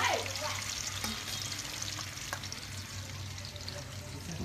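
Spiced chicken legs sizzling and crackling as they fry in a pan, with a few sharp clicks about one and two seconds in and a faint steady low hum underneath.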